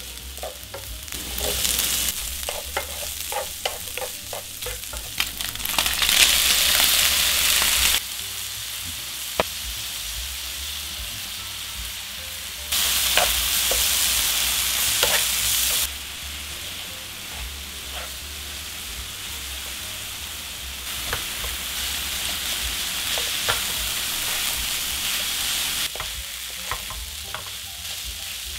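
Green onion, kimchi and rice sizzling in hot oil in a nonstick frying pan while a wooden spatula stirs and scrapes them, with light clicks of the spatula against the pan. The sizzle swells louder in stretches, about six and thirteen seconds in, then drops back.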